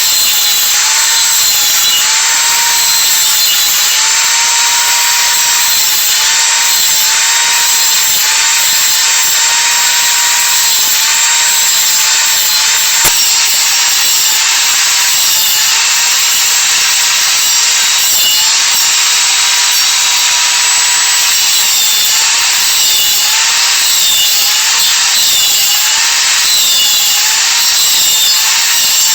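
Copy lathe cutting a pine bed leg: a steady high motor whine that sags briefly again and again as the cutter bites into the wood, over a continuous cutting hiss, with one sharp click about halfway through.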